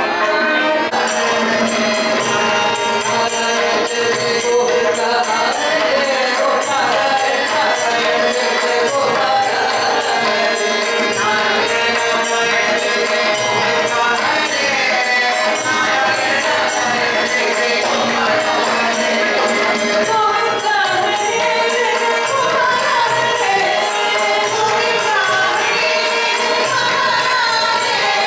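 Female vocal duo singing a devotional song with instrumental accompaniment. A steady, high-pitched percussion beat of small jingling or metallic strikes comes in about a second in.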